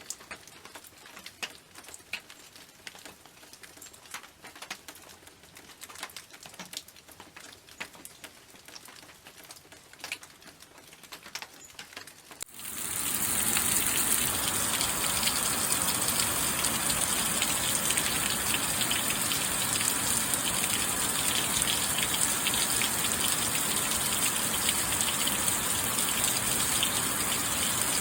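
Rain: scattered single raindrops falling for about the first twelve seconds, then a sudden change to a steady, dense downpour hiss.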